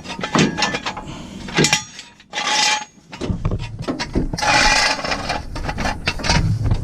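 Metal jack stands being set and shifted under a raised pickup: a run of clanks and knocks with two longer scrapes against the ground.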